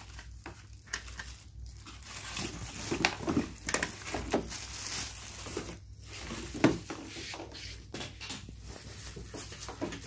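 Plastic wrapping crinkling and rustling against a cardboard box as plastic-bagged vacuum cleaner parts are lifted out and handled, with irregular small knocks; the loudest, a single sharp knock, comes about two-thirds of the way through.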